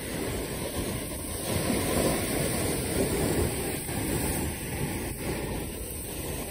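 Wind buffeting the microphone over rushing, splashing sea water: a steady, rough noise that swells and dips.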